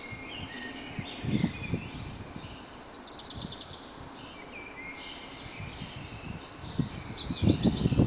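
Several songbirds singing and calling in an early-morning chorus: overlapping chirps and whistles, with a fast trill about three seconds in and another near the end. Low thumps, louder than the birds, come about a second and a half in and again near the end.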